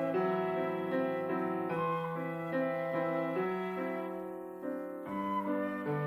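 Flute, violin and grand piano playing chamber music together: held melodic notes over piano chords, the phrase easing off about four and a half seconds in before the next one starts.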